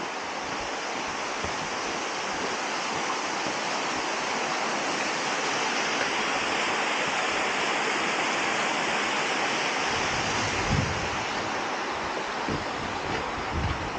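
Łomniczka waterfall, a mountain stream cascading over boulders, making a steady rushing of water that grows louder toward the middle. From about ten seconds in, wind buffets the microphone in low rumbling gusts.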